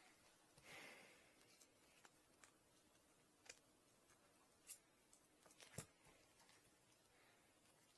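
Near silence with a few faint clicks and taps of small hand tools and metal nozzle parts being handled on a workbench, the two loudest about five and six seconds in.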